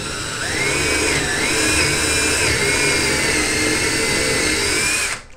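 DeWalt cordless drill running steadily as it bores through a single-thickness wooden drawer front, its motor whine wavering slightly in pitch; it stops about five seconds in.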